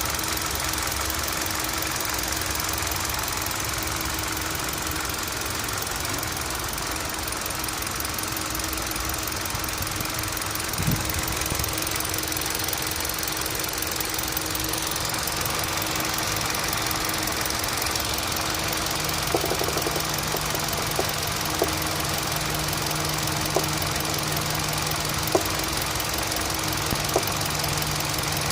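Engine running with an abnormal knocking noise. About two-thirds of the way in, a lower steady tone joins, and sharp knocks stand out every second or two.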